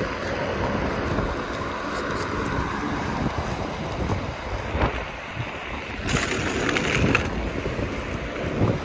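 Inline skate wheels rolling over rough wet asphalt, with wind buffeting the microphone. A louder hiss swells for about a second around six seconds in.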